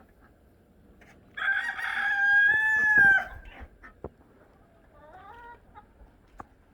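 A rooster crowing once: a long, loud call starting about a second and a half in, held on one pitch and dropping off at the end. A fainter, shorter bird call follows about two seconds later.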